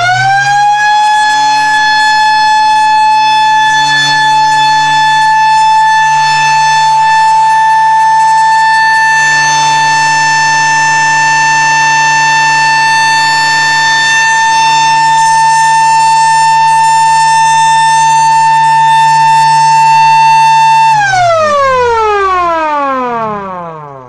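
Small electromechanical siren on a bench test, sounding one steady, loud, high wail. Near the end it winds down, falling in pitch as it fades.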